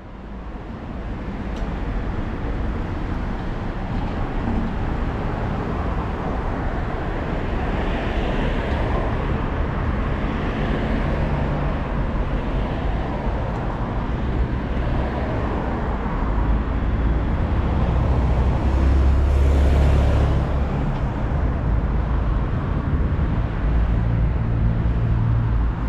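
Road traffic on a busy street: cars passing steadily, with one louder vehicle going by close about two-thirds of the way through.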